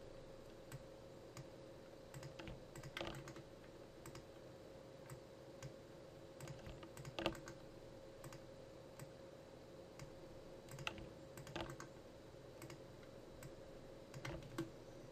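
Faint, scattered clicks of a computer mouse and keyboard being worked at a desk, the sharpest about halfway through, over a faint steady hum.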